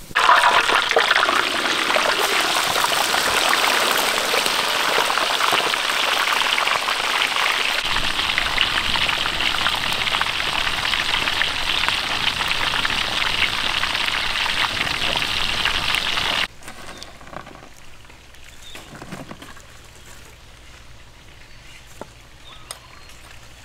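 Hot oil sizzling steadily in a wok, a dense frying hiss. About two-thirds of the way through it cuts off suddenly, leaving quiet outdoor background with light knife taps on a wooden chopping board.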